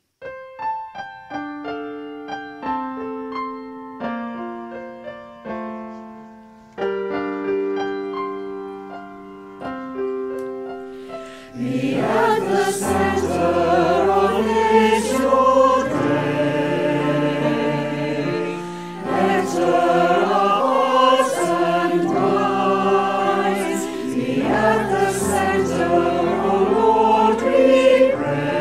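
Solo piano introduction of separate sustained notes; about twelve seconds in, a mixed choir of men and women comes in singing a sacred song with the piano accompanying, noticeably louder.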